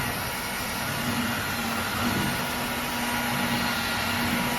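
Dreame H12S cordless wet-dry vacuum mop running steadily in suction mode, picking up water from the floor: an even rush of air with a constant motor hum.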